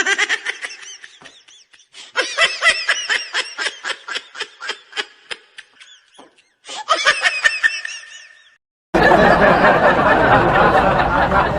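Laughing sound-effect clips played one after another: three bursts of rapid, pulsing laughter, each cut off abruptly, then from about nine seconds in a fuller, denser laugh that starts suddenly.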